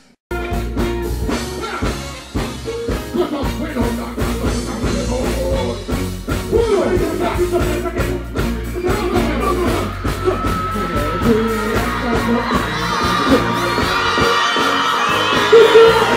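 Live dancehall music through a stage sound system: a deejay chants into a microphone over a bass-heavy riddim. It cuts in abruptly just after the start.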